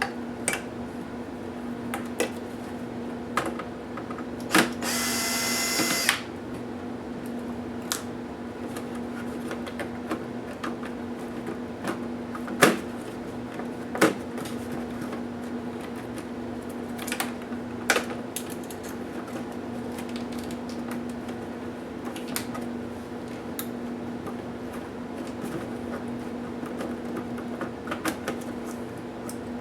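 A small power screwdriver whirs once for about a second and a half, a few seconds in. Sharp clicks and taps of plastic laptop parts and screws being handled come at intervals over a steady low hum.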